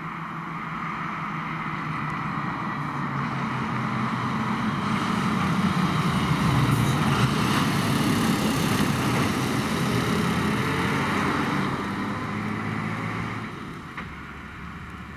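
Fire engine driving past: its diesel engine running and its tyres hissing on the road. The sound grows louder as the truck approaches, is loudest as it passes about eight seconds in, then fades as it drives away.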